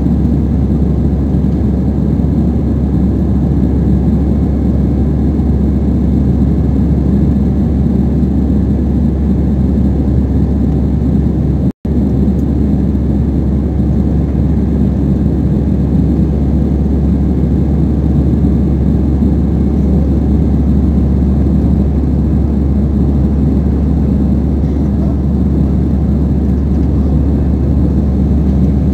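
Steady engine and airflow noise inside the cabin of a jet airliner climbing after takeoff, deep and even, with a sudden momentary cut-out of all sound about twelve seconds in.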